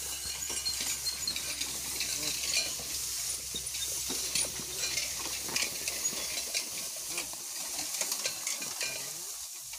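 Dry hay rustling and crackling as a horse-drawn hay rake is pulled through it by a pair of horses, with many small clicks and clinks.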